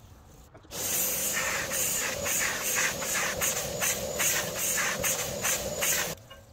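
Kärcher spray extractor's nozzle drawn across a fabric convertible top, spraying water and sucking it straight back up: a loud hiss with an uneven pulsing over a steady motor whine. It starts about a second in and cuts off shortly before the end.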